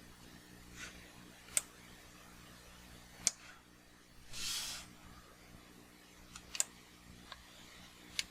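Four sharp computer mouse clicks, spaced a second or two apart, over a faint steady hum, with a brief soft rushing sound in the middle.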